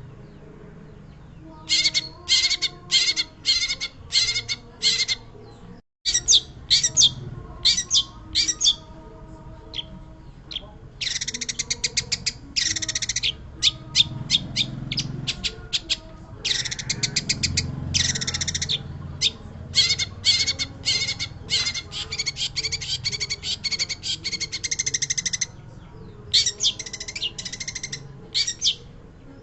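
Long-tailed shrike singing: rapid trains of high, chattering notes in bursts of a few seconds, broken by short pauses.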